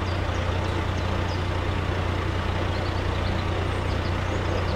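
Dump truck's diesel engine running steadily with a strong low hum while the hydraulic hoist tips the loaded bed to dump soil.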